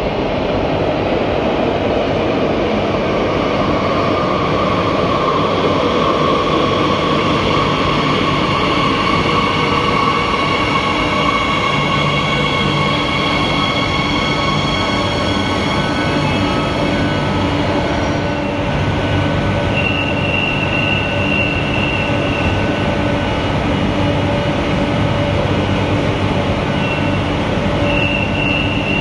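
A CAF Series 8000 electric metro train pulls into an underground station and slows to a stop. There is a steady rumble of wheels on rail and a layered electric whine from the traction equipment. After the train halts, a high steady tone sounds on and off.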